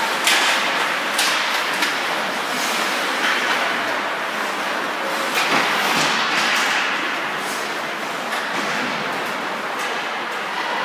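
Ice hockey play on the rink: skate blades scraping and carving the ice, with sticks and puck clacking, heard as a steady hiss broken by sharp scrapes and knocks every second or two.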